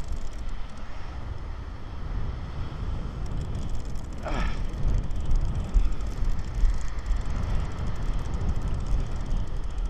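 Wind buffeting the microphone as a gusty low rumble, with one short cry falling in pitch about four seconds in.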